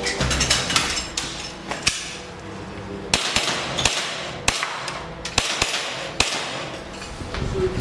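Airsoft pistol firing about ten sharp shots at irregular intervals, some in quick pairs, during a timed IDPA stage.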